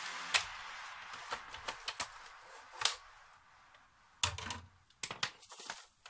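Scattered sharp plastic clicks and snaps from a Roomba 580's plastic shell being pried apart with a screwdriver and handled, with a duller knock about four seconds in and a quick run of clicks near the end.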